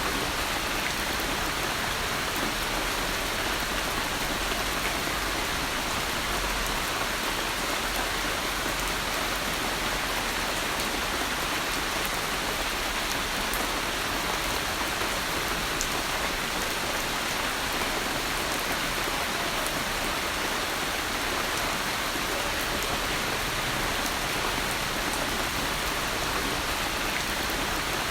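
Steady, heavy rain falling on a surface, an even hiss with no let-up and no thunder.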